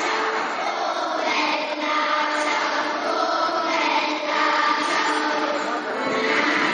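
Children's choir singing in unison, accompanied by a piano accordion.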